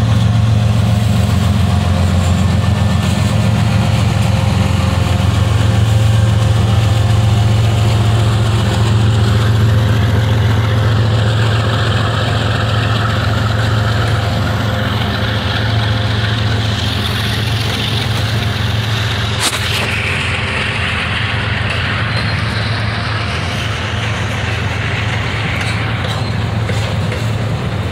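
CSX freight train passing close by: a loud, steady low diesel locomotive drone over the rumble of freight cars rolling past on the rails, easing off slightly toward the end. A single sharp clack comes about two-thirds through.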